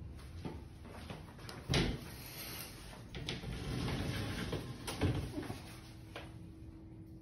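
Bathtub enclosure being opened, the shower curtain and brass-framed sliding door pushed aside: a few sharp knocks, the loudest about two seconds in and again about five seconds in, with a rattling slide between them.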